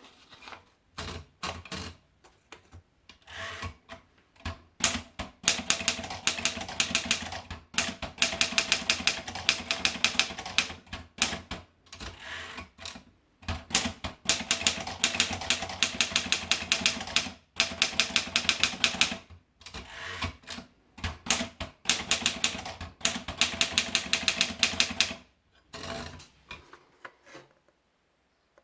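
Torpedo model 20 manual typewriter being typed on: rapid runs of sharp key strikes in bursts of a few seconds, with short pauses between them, stopping shortly before the end.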